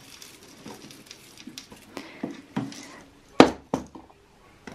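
Scattered small clicks and knocks of things being handled, with one sharp knock about three and a half seconds in and a smaller one just after.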